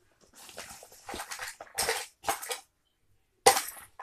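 Homemade slime being squeezed and worked by hand, giving wet squelching and crackling sounds in four short bursts.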